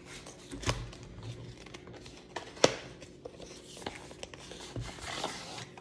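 Cardboard box of a tablet case being opened by hand: rustling and tearing of the packaging seal, with a few sharp taps and clicks, the loudest about two and a half seconds in.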